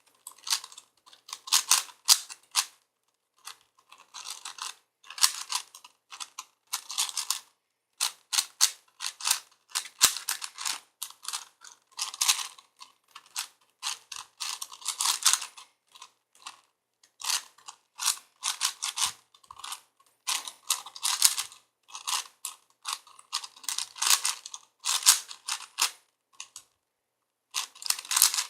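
A 4x4x4 Rubik's cube being turned by hand: its plastic layers clack in quick bursts of turns, separated by short pauses.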